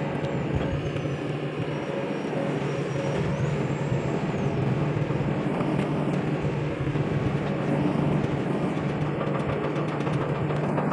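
Hydraulic excavator's diesel engine running steadily, an even hum that gets slightly louder about four seconds in.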